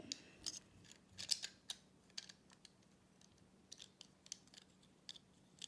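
Small plastic Lego bricks and plates clicking and tapping as they are handled and pressed together: a faint, irregular scatter of short clicks.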